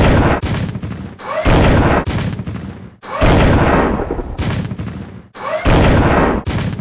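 Four heavy blasts of cannon or explosion sound effects, each starting suddenly and dying away over a second or so, about one and a half to two and a half seconds apart, some with a short rising whistle at the start.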